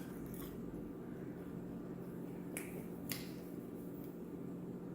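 Faint sharp mouth clicks and smacks of someone eating, a couple of them close together about two and a half to three seconds in, over a steady low electrical hum.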